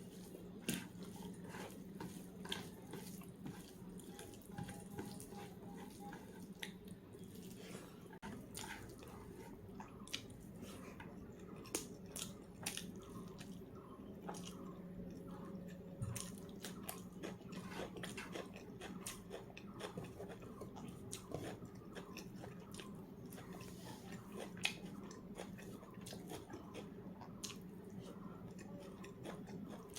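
Close-up eating sounds: chewing and biting with many small wet mouth clicks and smacks and an occasional crunch, over a steady low hum.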